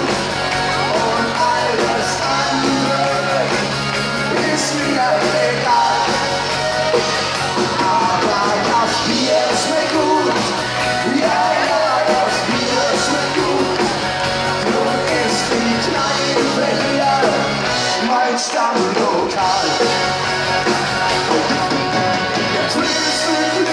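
Live folk-rock band playing loud through a PA, with accordion, electric guitar and drums, and voices singing or shouting along in places. The low end drops out briefly about eighteen seconds in.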